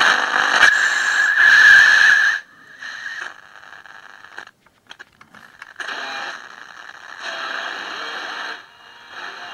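2P3 superheterodyne AM medium-wave radio kit playing hiss and crackling static through its small loudspeaker. It is loud for the first two seconds or so, then comes and goes more quietly.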